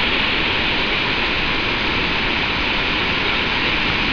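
Victoria Falls on the Zambezi: white water rushing with a loud, steady, even noise.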